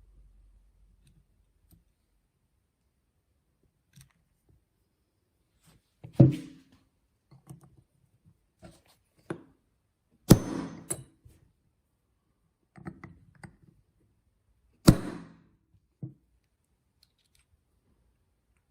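Hard knocks and clicks of small carburetor parts and tools being handled and set down on a workbench during reassembly. Three louder knocks come about six, ten and fifteen seconds in, between lighter clicks.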